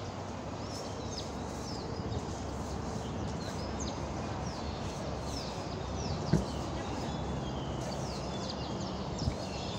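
Small birds chirping: short, high, downward-sweeping calls scattered throughout, over steady background noise. A single thump about six seconds in and a smaller one near the end.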